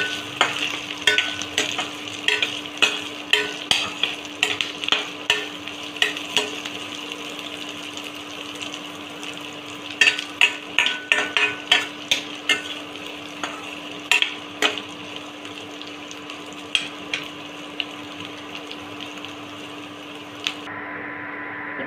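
Sliced onions and green chillies sizzling in oil and ghee in a steel pot, frying toward golden brown, with sharp clinks and scrapes of the spatula against the pot as they are stirred. The stirring comes in two spells, at the start and again around the middle, then thins out while the frying goes on, over a steady low hum.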